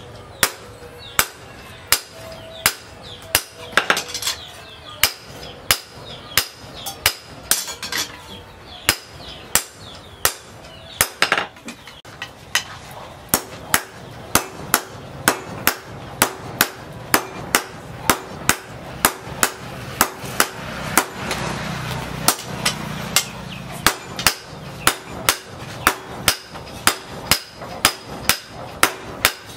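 Blacksmith's hammer striking a red-hot steel knife blade on a steel post anvil, about two blows a second, each blow ringing.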